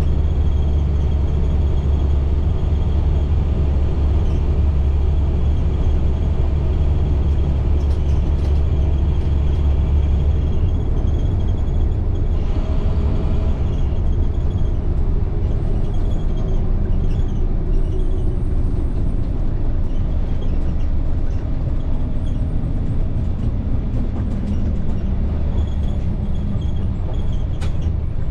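International MaxxForce DT inline-six diesel of a school bus running under way, with a heavy low rumble. Over the second half the engine note falls steadily as the bus slows, and there is a short hiss about twelve seconds in.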